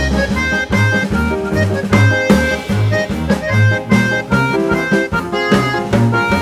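Background music: an upbeat instrumental with a steady drum beat, a walking bass line and sustained melodic notes.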